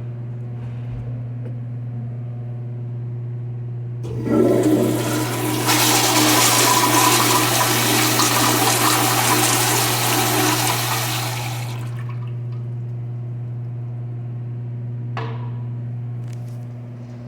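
ProFlo Carlton toilet flushing: the water rush starts about four seconds in, swells a moment later, and dies away after about eight seconds. A steady low hum runs underneath.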